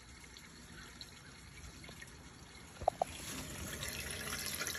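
Water trickling and dripping along a rain gutter; the trickle grows louder and more splashy from about three seconds in. Just before that come two short high squeaks.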